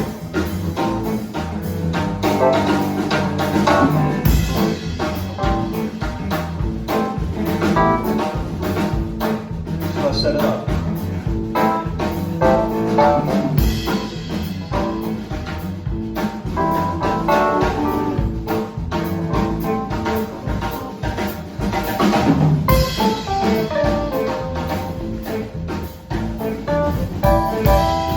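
Live blues band playing a song, with a drum kit beat to the fore under the instruments.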